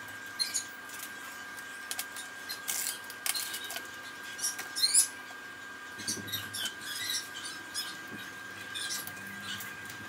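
Small scattered clicks, scrapes and squeaks of fingers handling the metal bucket and coupler of a full-metal diecast RC excavator, over a faint steady high whine.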